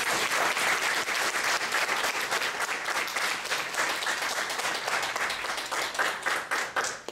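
Audience applauding, thinning out and stopping near the end.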